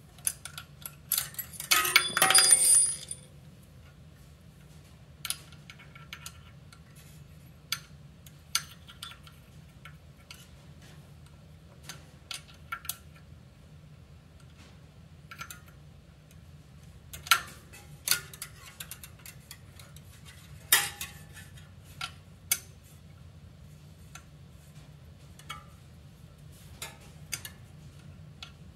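Open-end wrench clinking and clicking against the steel mounting bolts and nuts of a motorized bicycle's rear drive sprocket as they are tightened, with scattered sharp clicks. There is a louder ringing metallic clatter about two seconds in. A faint steady low hum sits underneath.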